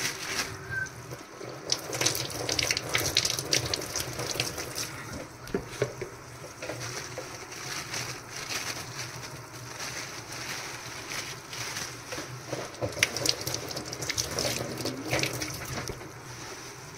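Raw mutton being washed under a running tap: water pouring and splashing into a sink, with irregular clicks and knocks throughout.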